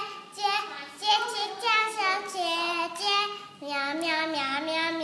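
A young girl singing alone in a high voice, a string of held notes that glide up and down with short breaks, settling on lower notes near the end.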